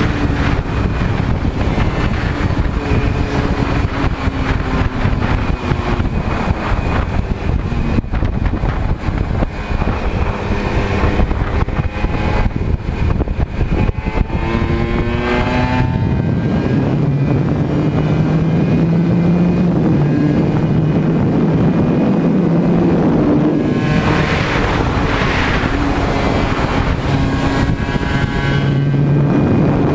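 Aprilia RS125 single-cylinder two-stroke engine at full throttle, heard onboard, its pitch climbing and then stepping as the gears change.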